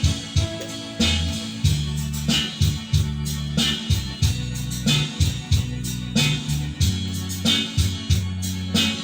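Background music with a steady beat, bass and drums.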